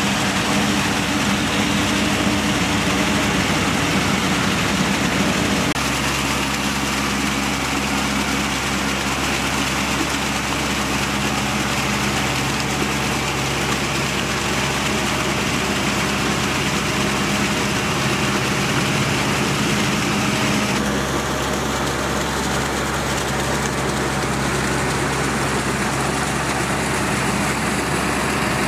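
Tractor engine running steadily under load while driving a rotary tiller through waterlogged paddy mud. The engine note changes abruptly about six seconds in and again about twenty-one seconds in.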